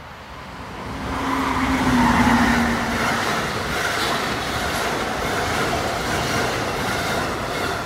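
Amtrak electric passenger train with Amfleet coaches passing at speed: wheels rolling on the rails build to a peak about two seconds in, with a low hum that drops slightly in pitch as the head end goes by, then the coaches' steady rolling noise continues and begins to fade near the end.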